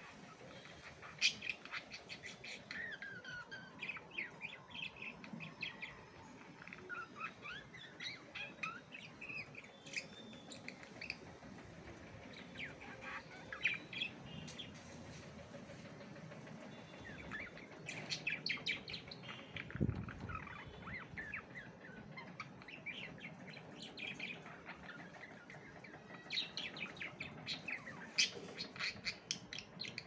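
Pet budgerigars chirping and warbling in bursts of fast chatter with pauses between: the contented chatter of happy budgies. A soft low thump comes about twenty seconds in.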